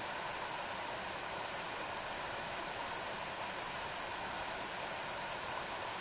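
Steady, unbroken rush of water at a river waterfall.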